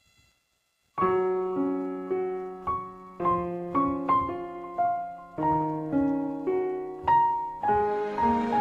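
Instrumental piano intro of a karaoke backing track for a slow ballad, coming in about a second in with struck chords and notes that ring and fade. The accompaniment grows fuller near the end, ahead of the vocal entry.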